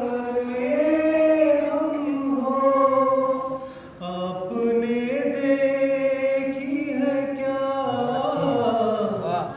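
Man reciting a Shia noha (Urdu lament) into a microphone, unaccompanied, in long held notes that glide between pitches. There is a brief breath pause about four seconds in.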